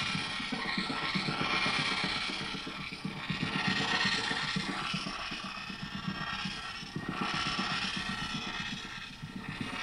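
Granular-processed electronic loop from guitar effects pedals: a looped phrase chopped into a dense, rapid stutter of very short grains by a Red Panda Particle and a Fabrikat pedal, swelling and easing in loudness. It is heard thinly through a phone microphone.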